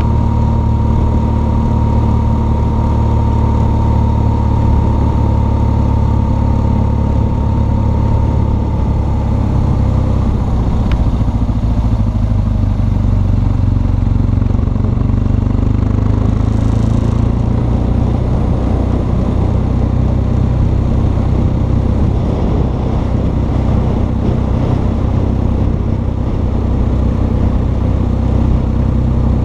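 BMW R1200 GS Adventure's boxer twin engine running steadily while the motorcycle is ridden along the road.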